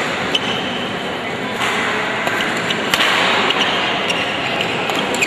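Badminton rackets striking the shuttlecock during a singles rally: several sharp smacks about a second apart, the strongest about three seconds in, over the steady murmur of a crowd.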